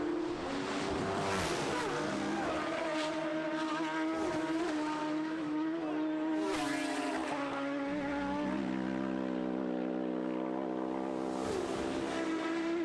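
Racing motorcycle engine running hard at high revs. Its note holds fairly steady, drops about seven seconds in, then climbs back up near the end.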